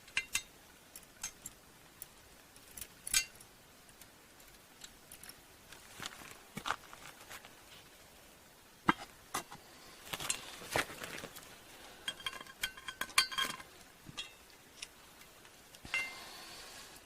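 Camp cookware and utensils being handled: scattered clinks and knocks of metal, irregular, with a few brief ringing clinks about three-quarters of the way through.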